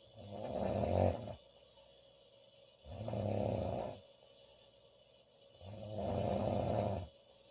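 A woman snoring: three snores about three seconds apart, each lasting about a second.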